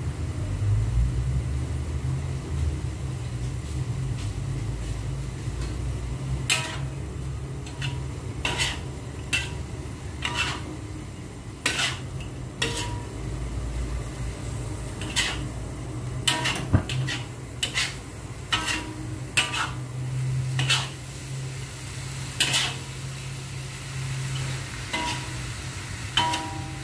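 Metal spatula scraping and clinking against a wok while stir-frying rice noodles. The clinks come irregularly from about six seconds in, over a steady low hum.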